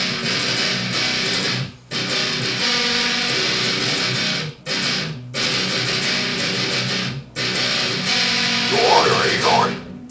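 Electric guitar playing a heavy death-metal riff that stops short three times, each for a moment. About nine seconds in, a voice joins in over the guitar.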